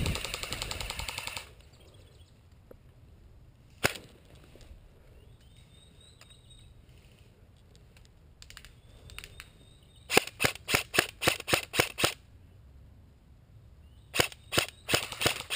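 G&G M4 airsoft electric rifle firing: a full-auto burst about a second and a half long at the start, a single shot about four seconds in, then a string of about nine quick shots and, near the end, about six more.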